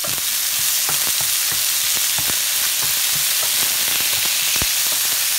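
Diced lamb sizzling as it browns in a hot non-stick frying pan, a steady hiss, while a wooden spatula turns the pieces. Scattered taps and pops run through it, with one sharper knock of the spatula on the pan about four and a half seconds in.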